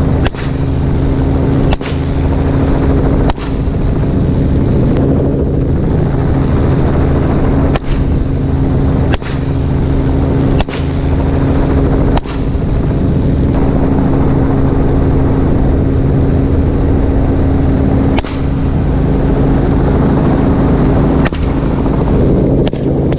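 Helicopter running steadily throughout, with about ten rifle shots fired one at a time at uneven gaps of one and a half to three seconds, and a longer pause of about six seconds in the middle.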